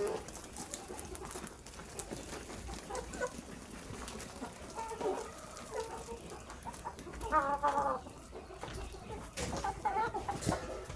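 Chickens clucking, with short calls scattered throughout and the loudest about seven seconds in.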